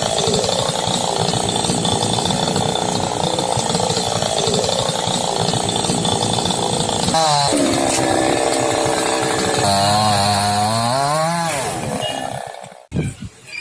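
Small petrol engine running hard, with its revs dropping and rising again in the second half, and crowd voices beneath. The sound cuts off suddenly near the end.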